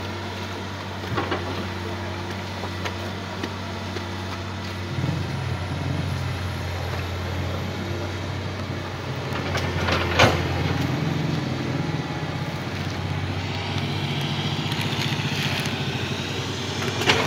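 Diesel engine of a hydraulic crawler excavator running steadily, working harder from about five seconds in as the boom and bucket move soil and rock. A sharp knock about ten seconds in.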